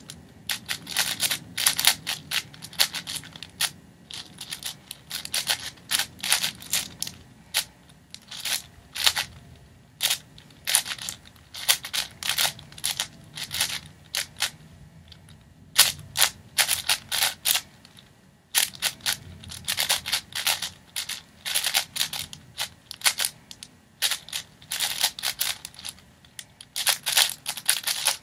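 Plastic 6x6 speed cube being turned fast by hand, its layers clacking in rapid bursts of clicks, with a few seconds of near pause a little past halfway.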